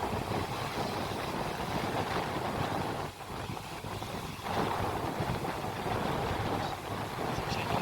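Wind buffeting the microphone at sea, over a steady rush of water, with brief lulls about three seconds in and again a little later.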